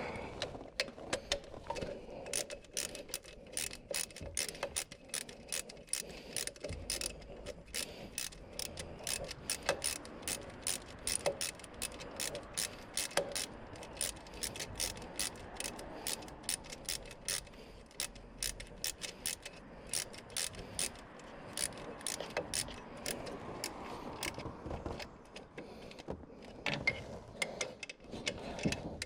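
Hand ratchet wrench clicking in long runs, a few clicks a second, as a bolt is turned by hand.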